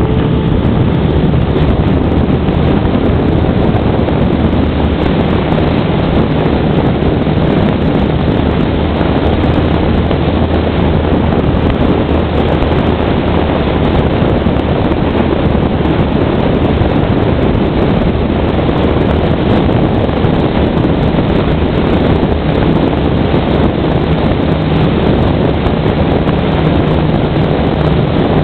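Motorboat underway at steady speed: a steady low engine drone under loud wind buffeting the microphone and water rushing past the hull.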